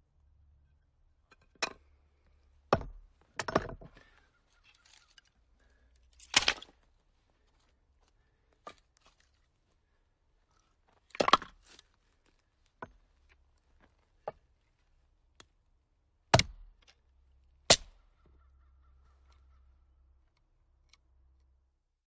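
Firewood being split by hand: about ten sharp chopping strikes at irregular intervals of one to three seconds. Some trail off for about half a second.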